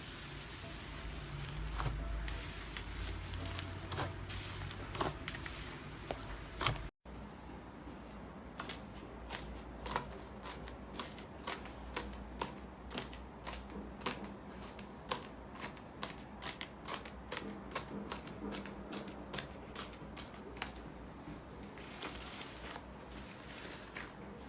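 Slime being squished and worked by hand, crackling with small pops. After a sharp cut about seven seconds in, a run of crisp pops comes at about three a second, then fades near the end.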